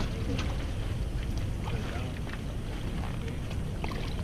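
Low rumble of wind on the microphone, with scattered light clicks and rustling as a wet mesh weigh bag is handled over a plastic laundry basket.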